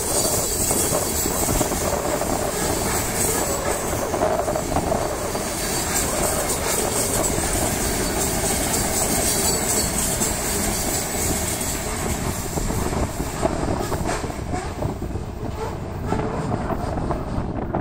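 Freight train of covered hopper cars rolling past at close range, the wheels clattering over the rail joints in a steady run of clicks. The noise thins out near the end as the last car goes by.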